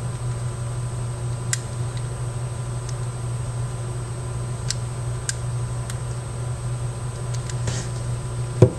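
Steady low hum with a few faint light clicks and one louder knock shortly before the end, from a small toy RC helicopter being handled while its rotor gears are oiled.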